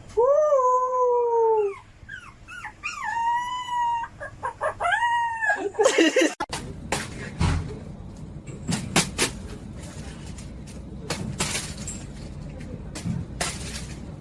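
A dog howling: one long wavering howl, then several shorter howls. After about six seconds these give way to scattered knocks and clatter.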